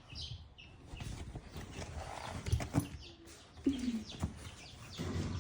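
Chickens: chicks peeping in short high chirps near the start, a single low falling call later on, and a few scattered knocks.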